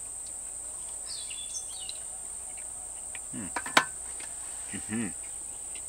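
Steady high-pitched chirring of insects in the grass, with a few brief high chirps over it. Two short murmured voice sounds come near the middle, and a sharp click just before four seconds in.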